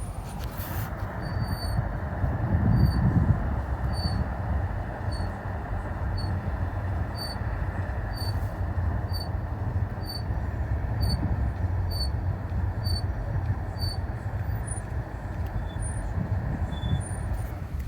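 A car being driven, its running noise overlaid by a short high-pitched squeak that repeats every second or so.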